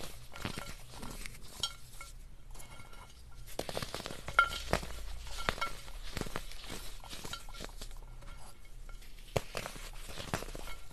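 Coloured chalk pieces being crushed and crumbled by hand in a ceramic bowl: an irregular run of crunches and crackles, with pieces clinking against the bowl.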